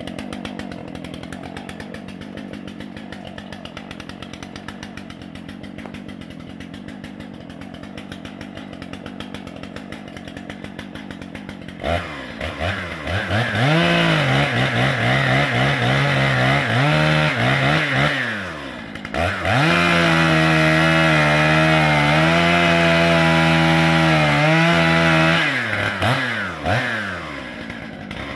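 Gasoline chainsaw idling with a fast, even putter, then revved to full throttle about twelve seconds in to cut a 12-inch poplar. The engine note sags and recovers under load, drops briefly, holds high for about five seconds, then falls back to short revs near the end.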